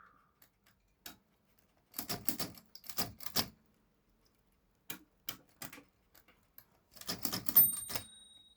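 Mechanism of a 1961 Erika 10 portable typewriter clicking and clacking in several quick clusters with single clicks between, as its touch regulator is worked. A faint thin ringing tone comes in near the end.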